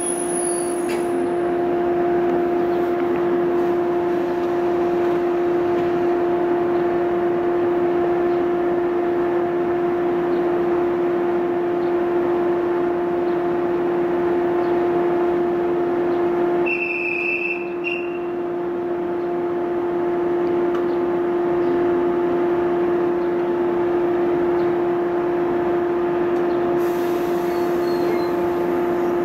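Steady electrical hum of a red JR West local electric train standing at the platform: one constant mid-pitched tone with an overtone above it. A short high beep sounds about 17 seconds in.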